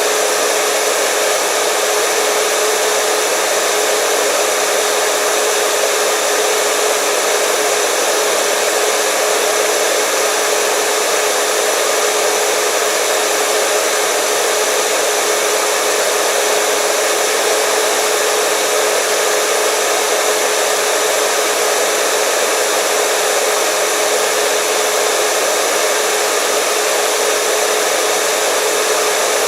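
Hair dryer running steadily: a constant rush of air with a steady motor hum, unchanging throughout.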